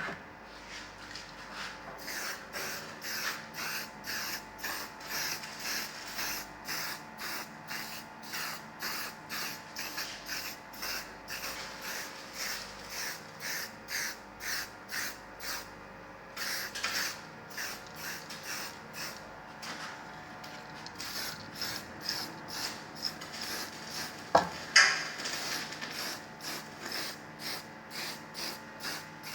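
Rhythmic back-and-forth scraping strokes of hand abrading, about two a second, with a couple of short breaks. Two sharp knocks come about 24 seconds in.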